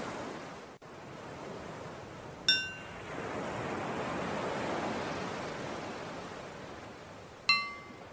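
Ocean waves washing in and out, with a small bell struck twice about five seconds apart, each strike ringing briefly; the second strike is a little lower in pitch. The bell is the cue to switch between breathing in and breathing out.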